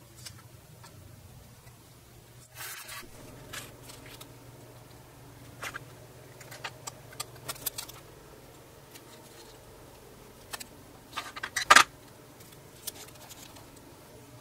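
Handling noises on a workbench as a film stencil and blue painter's tape are pressed onto a steel knife blank: scattered small clicks, taps and short rubbing, ripping sounds, with a brief rasp about two and a half seconds in and the loudest cluster a couple of seconds before the end. A low steady hum runs underneath.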